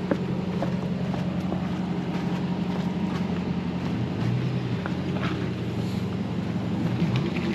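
Off-road vehicle engine running at low speed, a steady low hum.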